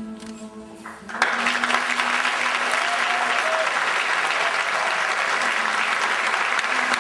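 Audience applauding, breaking out suddenly about a second in and holding steady, with music playing faintly underneath.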